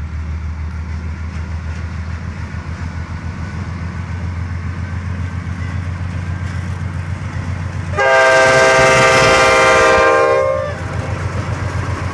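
Norfolk Southern diesel locomotive running with a steady low engine rumble as it rolls past. About eight seconds in, its horn sounds one long chord for about two and a half seconds, the loudest thing here, before the engine rumble carries on.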